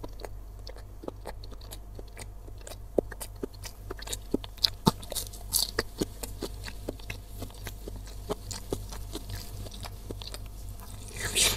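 A person chewing a mouthful of Indonesian beef meatball (bakso) close to the microphone, mouth closed: an irregular run of soft clicks, a few louder ones a few seconds in. Near the end comes a fresh bite into the jumbo meatball.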